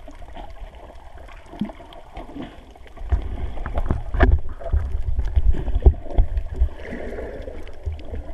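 Muffled underwater sound through a GoPro's waterproof housing: water moving against the case with scattered clicks, turning into a heavy low rumble with sharp knocks about three seconds in as the camera is jostled about.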